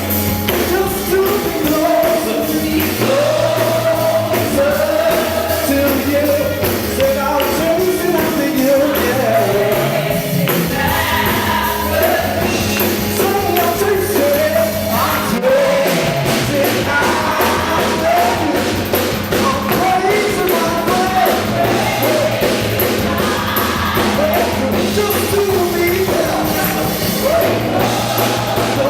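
Gospel song with singing over a band with a steady bass line.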